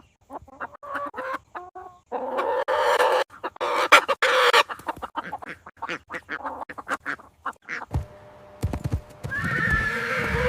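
Farm animal calls: chickens clucking in short calls, then a run of sharp clicks like hooves, and near the end a horse's call begins and carries on.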